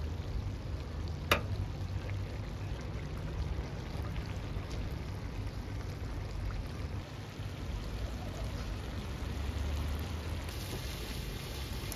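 Water poured in a thin stream onto plov rice in a kazan, a steady splashing, with one sharp click about a second in.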